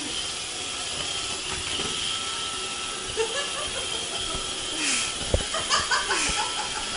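Vacuum cleaner running with a steady hiss, with a few short knocks and clatter about five to six seconds in.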